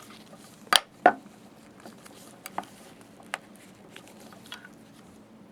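Small metal clicks and knocks as a loosened metal bracket plate on a slit-lamp chinrest is turned into line by hand: two sharp clicks about a second in, then a few lighter ticks.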